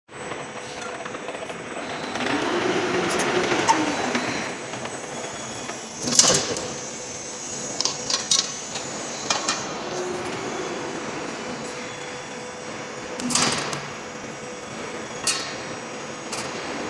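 Embossing roll forming machine for rolling shutter door slats running, a steady mechanical hum as steel strip from the coil feeds through the roller stations. Several sharp metallic clanks break in, the loudest about six seconds in and again about thirteen seconds in.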